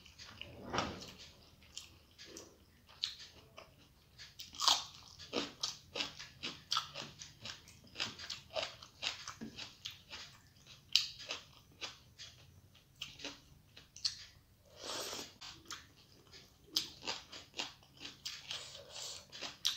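Close-miked chewing and wet mouth sounds of a person eating rice and fish curry by hand: many short smacks and clicks at an uneven pace, with a few longer, louder wet smears.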